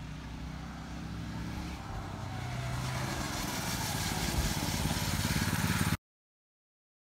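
A mini bike's Predator 212cc single-cylinder engine running as the bike rides closer, growing steadily louder. The sound cuts off abruptly about six seconds in.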